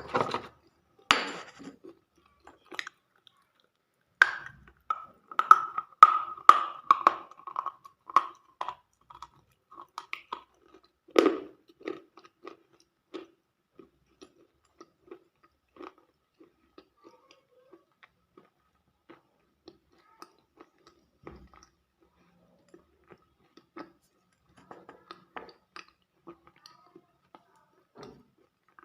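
A person biting and chewing something crunchy. The crunches come thick and fast in the first half, with a loud bite about eleven seconds in, then thin out to slow, sparse chewing.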